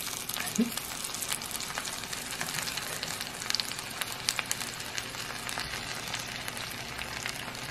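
Fried eggs and avocado slices sizzling in oil in a frying pan: a steady sizzle dotted with many small crackling pops.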